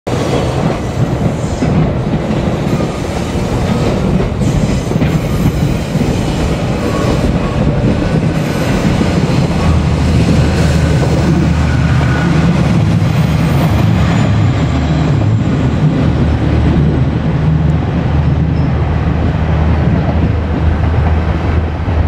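Electric trains moving on the rails close by: wheels clacking over rail joints, with a steady low hum of a train that sets in about ten seconds in and keeps going.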